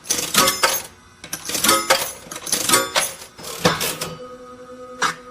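Bursts of metallic clinking and jingling with ringing after each, about five clusters, then a steady held tone from about four seconds in.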